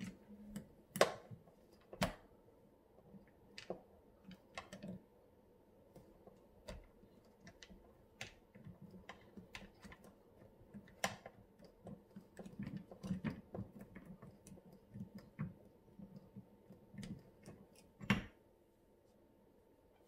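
Scattered small clicks and taps of a T8 Torx bit and driver against the chrome body of a Franke mixer tap as the small screw under the handle is worked loose. They come irregularly, with sharper knocks about a second in and near the end.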